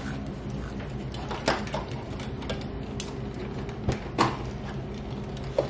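Pliers working on a wire on a worktable: a few sharp clicks and snips, the loudest about four seconds in, over a steady low hum.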